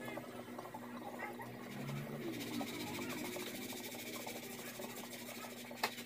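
Teddy bear (long-haired Syrian) hamster nibbling a piece of apple: faint small crunching clicks over a steady low hum, with one sharp click near the end.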